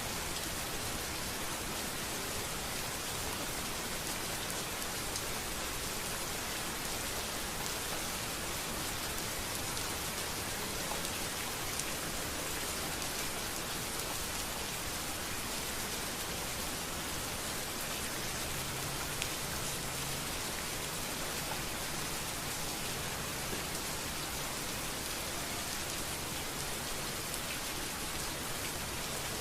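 Steady rain falling on a street: an even, dense hiss with many small drop ticks.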